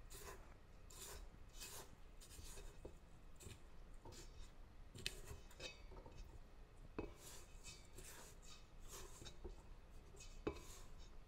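Silicone spatula scraping down the sides of a stainless steel stand-mixer bowl: faint, irregular rubbing strokes with a few light knocks.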